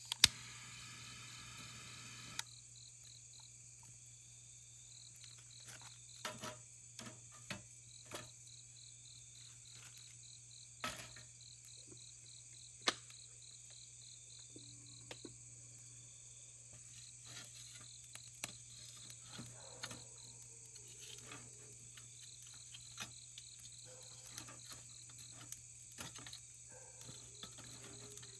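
Insects chirping in a steady, rapidly pulsing trill over a higher, even buzz, with scattered faint clicks and taps. A rasping rub runs for the first two seconds or so and then stops.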